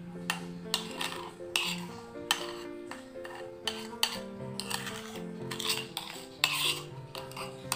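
A spoon stirring iced milk and whipped coffee in a stemmed glass, clinking irregularly against the glass and the ice cubes, about two or three clinks a second.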